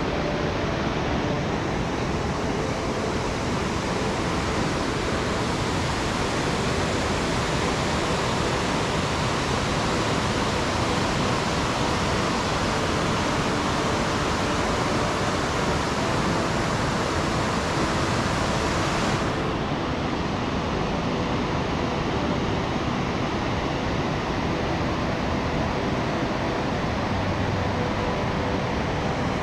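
Steady rushing of a large, fast river running over rapids. About two-thirds of the way through, the highest part of the hiss drops away suddenly.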